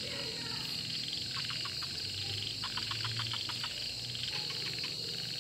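Night chorus of insects with a steady high-pitched buzz, and frogs calling in short trains of rapid clicks, about ten a second, two trains around the middle.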